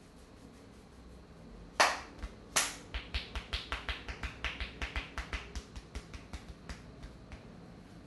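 Massage percussion: a barber's hands striking the top of a man's head. Two sharp smacks come about two seconds in, then a rapid run of tapping strikes, about five a second, that fades out near the end.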